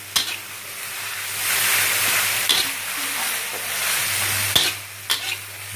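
Chopped torch ginger flower and spring onions sizzling in a hot wok while a spatula stirs and scrapes them, with a few sharp knocks of the spatula against the pan over a steady low hum.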